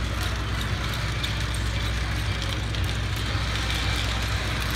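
O-gauge-style model train running steadily on its track, a continuous low hum and rumble with faint ticking.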